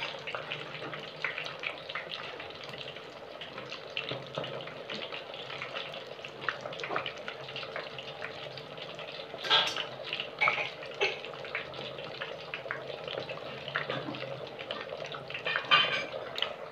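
Stuffed crab shells deep-frying in a pot of hot oil: steady sizzling and bubbling with constant crackling pops, and a couple of louder bursts of crackle about ten seconds in and near the end.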